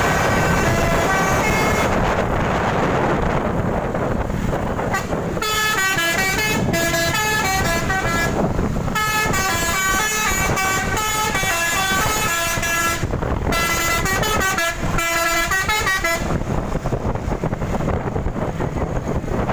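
Basuri telolet musical bus horn played continuously, its trumpets sounding a quick tune of stepped notes: briefly at the start, then without a break from about five seconds in to about sixteen seconds. A steady rushing noise fills the gaps and the last few seconds.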